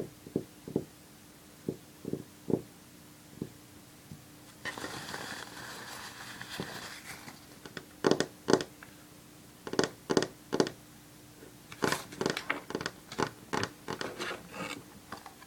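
Long fingernails tapping on a paper towel, a few scattered soft taps, then a couple of seconds of paper rustling about five seconds in. From about eight seconds the nails tap directly on a wooden tabletop: sharp clicks, singly and in quick runs.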